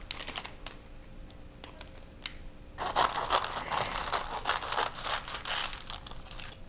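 Scissors cutting through a dry sheet of gimbap laver (roasted seaweed), a crisp crunching cut about three seconds long that starts near the middle. Before it, a few light clicks and crinkles.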